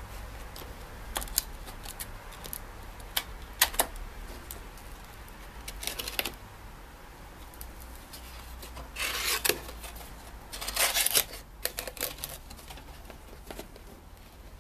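Hands opening and handling product packaging: irregular rustling and scraping with sharp clicks and taps, the longest scraping stretches a little past halfway.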